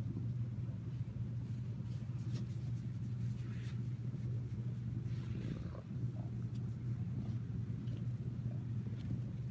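A cat purring steadily, close to the microphone, with soft rustling as hands stroke its fur.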